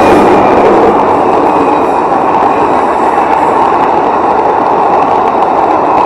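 Passenger coaches of an express train rolling past at speed: a loud, steady rush of steel wheels on rail.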